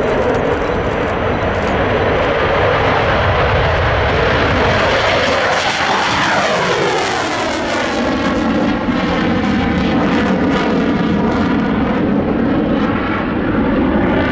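Dassault Rafale jet fighter's two M88 engines passing by. The loud hiss builds to a peak about seven seconds in and then falls away, with a whooshing, phasing sweep as the jet goes past.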